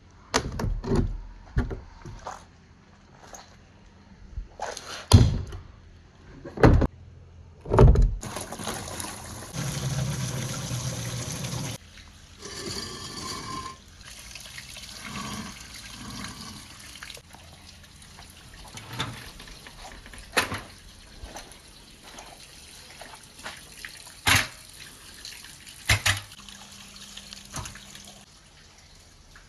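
Marbles rolling and clacking through a water-filled marble run of PVC pipe and plastic rain gutters. There is a run of sharp knocks at first, then steady rushing water from about eight seconds in, with scattered clacks over it.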